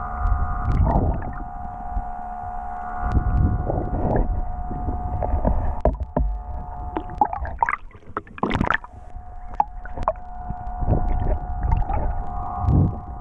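Underwater sound through an action camera's microphone: water rushing past in low rumbling surges over a steady whine, which drops out for a couple of seconds near the middle. A sharp louder burst comes a little past halfway.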